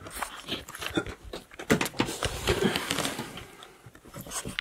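Irregular clicks, knocks and rustling of handling and movement in a small room.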